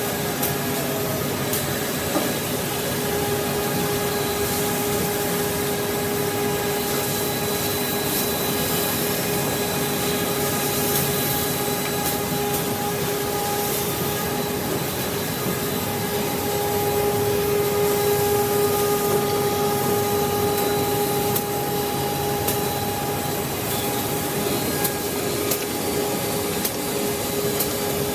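A CNC six-sided drilling machine for wood panels running: a steady motor whine over a rushing, vacuum-like noise, with short clicks here and there.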